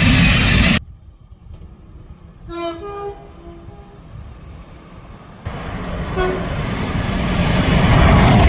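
Train horns across cuts between clips: loud train noise stops abruptly, then a faint two-note train horn sounds about 2.5 to 4 seconds in. After another abrupt change a passing train's rumble swells with a short horn toot a little after 6 seconds, growing louder toward the end.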